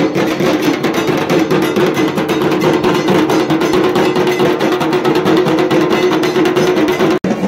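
A group of tasa drums, shallow kettle drums slung at the waist, played fast with thin sticks: a dense, driving roll of strokes over a steady ringing tone. It breaks off abruptly near the end.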